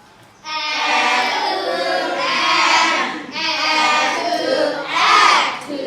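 Children's voices singing together in unison, in about three long phrases.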